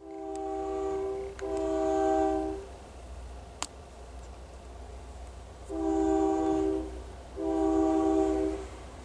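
Diesel locomotive air horn sounding four blasts of about a second each, in two pairs, each blast a chord of several tones. A steady low rumble runs underneath, and there is a single sharp click midway.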